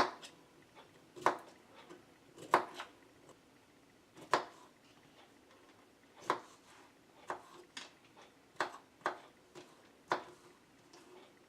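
Scattered light knocks and clicks of kitchen handling, about ten of them at irregular intervals, each short and sharp.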